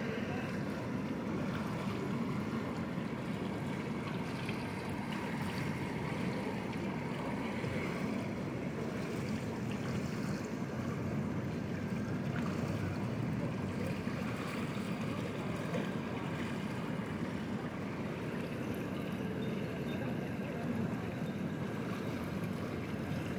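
Steady churning of water from a swimming pool's bubble or massage jets close by.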